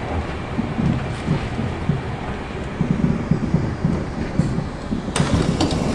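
Berlin U-Bahn F-type train running into a station, heard from inside the car: a steady low rumble of wheels and running gear with irregular knocks. About five seconds in, a sudden sharper noise cuts in as the train reaches the platform and the doors are released.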